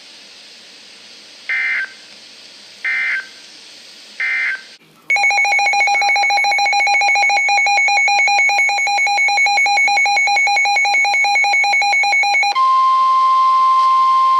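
NOAA Weather Radio alert signals. Three short buzzy data bursts come about 1.4 s apart: the SAME end-of-message code closing the previous warning. About five seconds in, a loud, rapidly pulsing electronic alarm with several mixed tones starts, and near the end it gives way to the steady single-pitch 1050 Hz warning alarm tone that heralds the next severe thunderstorm warning.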